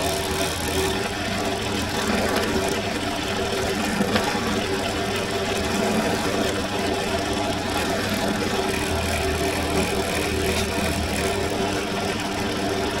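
Benchtop drill press motor running with a steady hum while a fine bit drills stitching holes through a leather knife sheath face.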